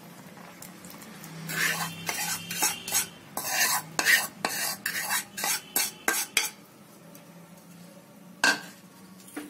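A spoon scraping and knocking against a bowl in a quick run of strokes lasting about five seconds, as the milk-and-jaggery mixture is emptied into the pan; a single sharp knock follows near the end.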